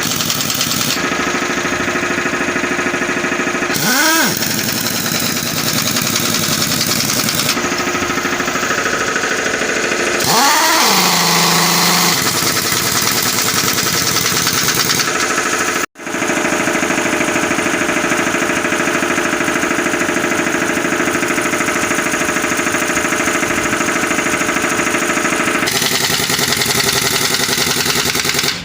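Truck engine running steadily, revving up briefly twice.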